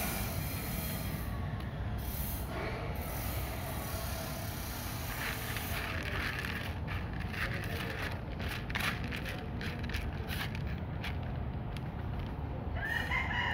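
Kittens eating dry kibble: scattered small crunches and clicks, thickest in the middle, over a steady low outdoor rumble. A brief higher-pitched sound near the end.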